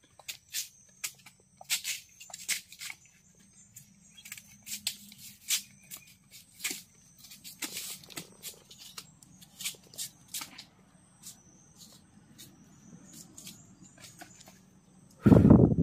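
Machete cutting and stripping the leaf sheaths from a swamp sour palm (asam paya) shoot: a run of sharp, irregular snaps and cracks, with a steady high whine behind them. A loud thump comes near the end.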